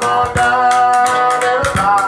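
Soundtrack music: plucked guitar and percussion under a singing voice that holds one long note.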